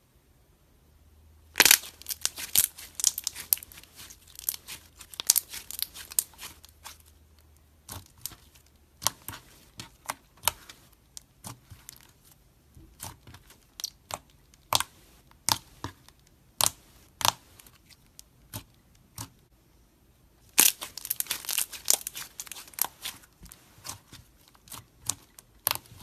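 Slime being stretched and pressed, giving sharp crackling clicks and pops: a dense run of crackles about two seconds in, single pops spaced out through the middle, and another dense run near the end.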